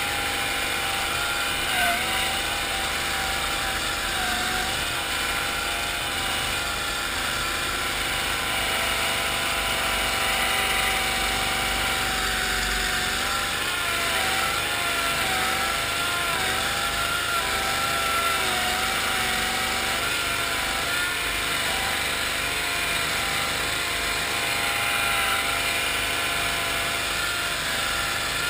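1974 Cushman Trackster tracked amphibious vehicle's engine running steadily under load as it drives across the marsh, its pitch wavering up and down with the throttle.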